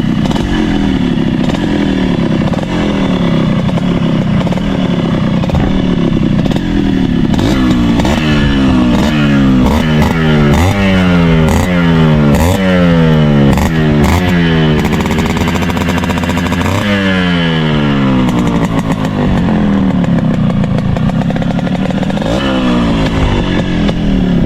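Yamaha RX100's two-stroke single-cylinder engine revved through its stock muffler, a mild exhaust note. The throttle is blipped over and over, each rev falling away; midway come quick blips about once a second, then a rev held for a couple of seconds before it drops back.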